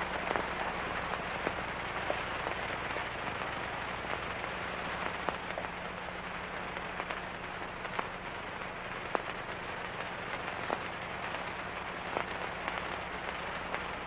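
Steady hiss with scattered crackles and pops over a low hum: the surface noise of a worn old film soundtrack.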